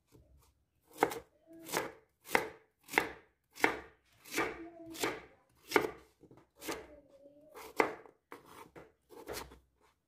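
Chef's knife slicing through a peeled raw sweet potato and knocking on a wooden cutting board: a steady run of cuts, a little under two a second, beginning about a second in.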